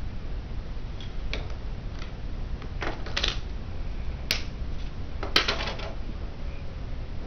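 Plastic LEGO Bionicle pieces clicking and clattering as they are handled, snapped together and set down on a glass tabletop: scattered sharp clicks, with a short cluster about three seconds in and the loudest cluster about five seconds in.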